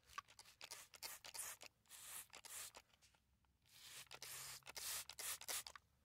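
Trigger spray bottle of soapy water squirting repeatedly onto a plugged tire tread: a quick run of short hissing sprays, with a brief pause midway. This is a soap-bubble leak check on the tire plug.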